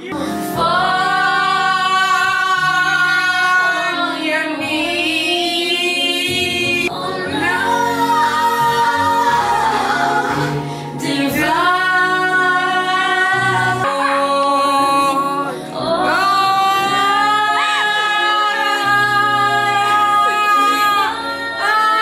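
A song playing: a woman singing long held notes over music, in several phrases with short breaks.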